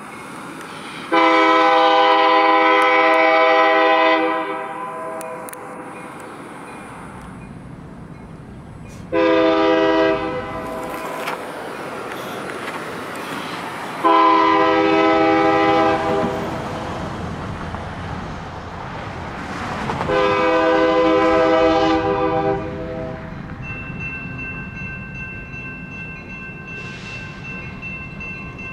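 Union Pacific freight locomotive's air horn sounding four blasts as the train approaches the crossing, over a low locomotive rumble that grows. Near the end the crossing's electronic warning bell starts ringing as the signals activate.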